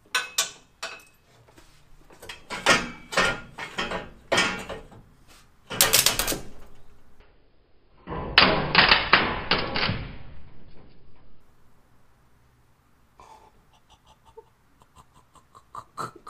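Hand tools clanking and clicking on metal as a wrench and socket are worked on header bolts of a Chevy 350 small-block: sharp clicks and knocks in clusters, a denser rattling clatter about eight seconds in, and faint quick ticking near the end.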